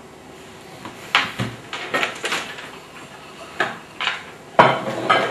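Kitchen clatter: a string of short, sharp knocks and clinks, about eight of them, the loudest about a second in and again near the end.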